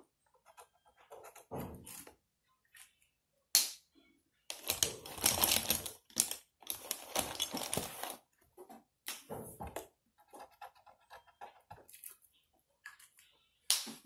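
Felt-tip marker scratching across a paper card as it is coloured in, in irregular scratchy bursts, with the longest stretches about five and seven seconds in and a sharp click a little before.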